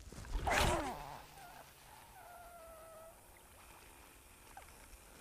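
Spod cast at full power on a carp rod: a loud whoosh with a strained grunt of effort about half a second in. After it comes a faint steady whine as the braided line runs off the reel.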